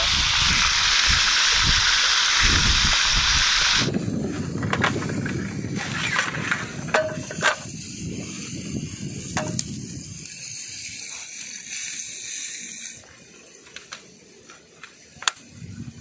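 Quail frying in oil in a pan on a portable gas stove, a steady loud sizzle that cuts off about four seconds in. Then a low rumble and a string of separate sharp clicks and clacks, as the aluminium slats and folding legs of a roll-up camping table are unrolled and snapped into place.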